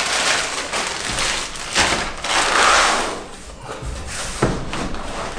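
A plastic packaging bag crinkling and cardboard box packing being handled and shifted, with a couple of short thuds.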